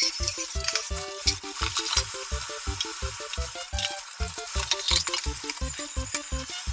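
Kitchen tap running onto dishes in a stainless steel sink as they are rinsed, with light clinks of dishware, over background music with a steady beat.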